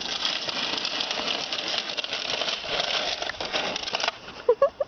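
Snow shovel blade scraping over a paved path as it pushes snow, a dense gritty scrape that stops abruptly about four seconds in. Then come a few short, loud squeaks.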